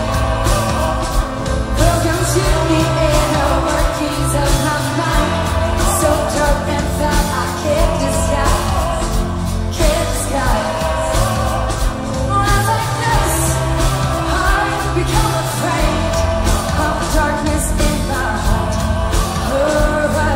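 Live pop band music: a woman singing lead into a microphone over drums and a heavy, steady bass.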